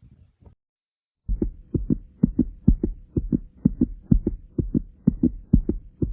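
A human heartbeat heard up close, pounding in quick paired lub-dub thumps a little over twice a second. It starts after a brief quiet gap about a second in.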